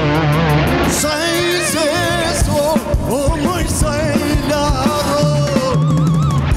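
A woman singing held notes with strong vibrato over a live rock band, with drums and bass steady underneath.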